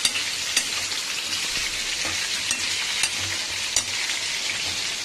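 Skin-on potato slices and chopped garlic frying in hot oil in a kadai, a steady sizzle, with a few sharp clicks of a spatula against the pan as they are stirred.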